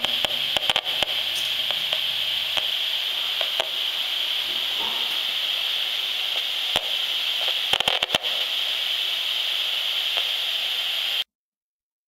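A handheld RF meter's audio output: a steady radio-static hiss broken by irregular crackling clicks, the meter's rendering of RF pulses from a bank of smart meters transmitting. There is a cluster of clicks at the start and again about eight seconds in, and the sound cuts off suddenly near the end.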